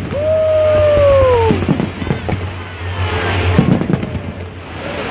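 Fireworks display: shells bursting with sharp bangs and crackling over a steady low rumble. A long falling whistle-like tone in the first second and a half.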